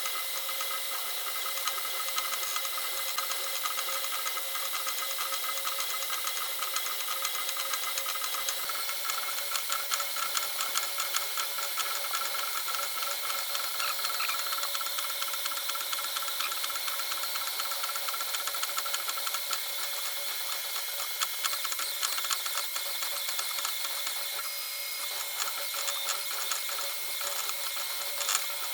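Creality K2 Plus 3D printer running, its stepper motors whining in several steady tones over dense, rapid ticking of fast head and bed moves. The pitch of the whine shifts about 9 seconds in and again near 24 seconds.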